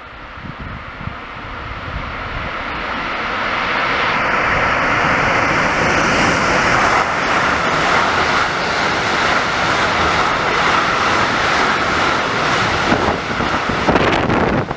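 Long freight train passing close beneath, its wheels running on the rails in a loud steady rush that builds over the first few seconds. A thin high whine sounds for a few seconds in the middle.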